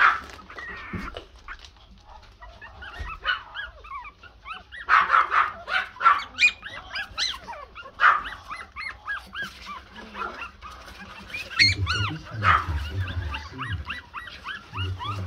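A litter of black Pomeranian puppies yipping, many short high squeaky calls overlapping in bursts, busiest about a third of the way in and again later on.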